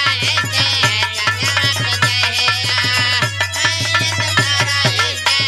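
Live instrumental interlude of a Bhojpuri folk song played through a stage PA: fast, even hand-drum strokes under a wavering melody line, with no singing.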